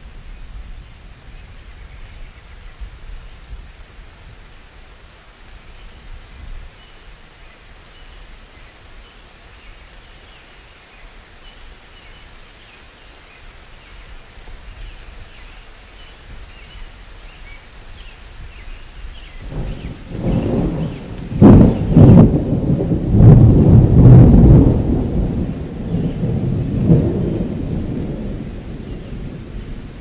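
Steady rain, then a long roll of thunder about two-thirds of the way in. The thunder is a sudden low rumble with a couple of sharp cracks, loudest for a few seconds, then slowly dying away.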